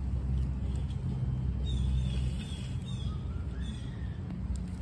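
Wind buffeting the microphone with a steady low rumble, heaviest in the first half. A few short bird chirps come through faintly about halfway through.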